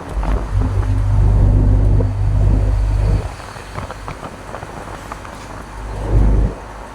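Low rumble of a truck on the road, with a steady low engine tone. It is loud for the first three seconds, eases off, then swells briefly near the end.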